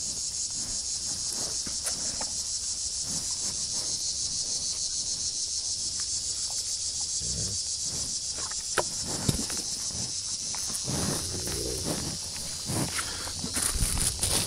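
Steady, high-pitched insect chorus with a fast, even pulsing. A couple of sharp knocks come about nine seconds in, and rustling and bumps pick up near the end.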